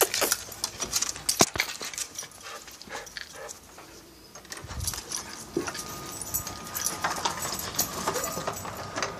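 Small dog on a leash scrabbling across carpet, its leash clip and tags rattling and jingling in a run of quick sharp clicks.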